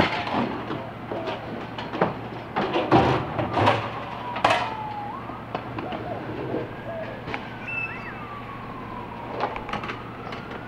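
Metal clanks and knocks of a 30-gallon metal trash can being pulled from its buried curbside bin and handled onto a hand truck, loudest in the first few seconds, over the low hum of a garbage truck idling down the street. A faint wailing tone slowly rises and falls in pitch every few seconds.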